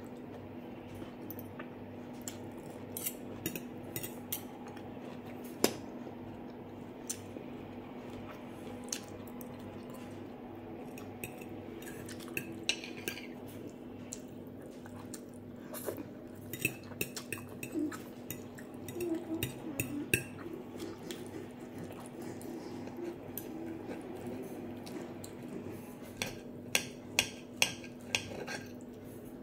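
Metal fork and knife clinking and scraping on a glass plate, with soft chewing between bites. A quick run of about five clinks comes near the end, over a steady low hum.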